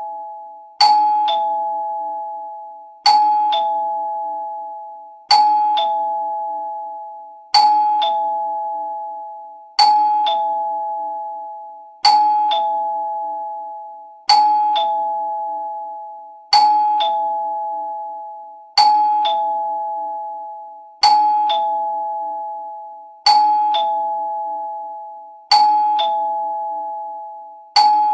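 Two-tone ding-dong doorbell chime repeating over and over, about once every two seconds: a higher note struck, then a lower one half a second later, each ringing out and fading.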